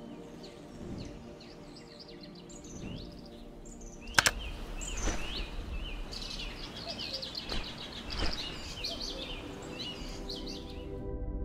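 Birds chirping and singing over a soft, sustained ambient music pad. A sharp click about four seconds in, after which the birdsong grows busier, then stops shortly before the end while the music carries on.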